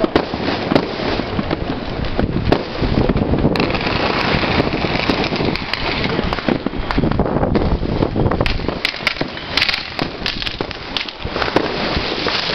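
Fireworks going off: a continuous mix of bangs and crackling. A hissing stretch comes about a third of the way in, and sharp cracks come thick and fast in the second half.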